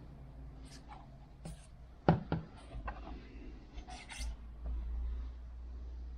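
Scattered clicks, knocks and rubbing of parts being handled during work on a motorcycle's air intake, with one louder knock about two seconds in, over a steady low hum.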